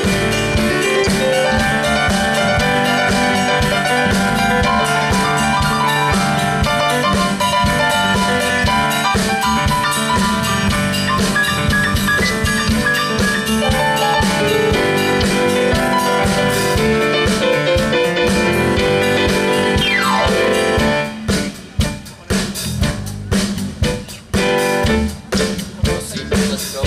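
Live pop-rock band playing: keyboard, bass guitar, acoustic guitar and drum kit together, full and steady. About three-quarters of the way through, the playing turns into short stop-start hits with brief gaps between them.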